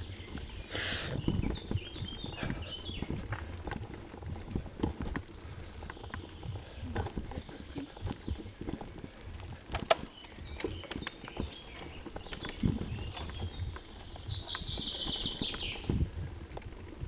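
Mountain bike rattling and knocking as it rides over a bumpy dirt forest trail, with a steady low rumble of tyres on the ground and one sharp knock about ten seconds in. A brief high squeal sounds near the end.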